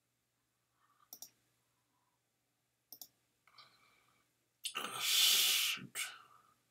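Computer mouse clicking twice, about two seconds apart, as answers are picked on an online exam page. Near the end comes a louder rush of noise lasting about a second, the loudest sound here.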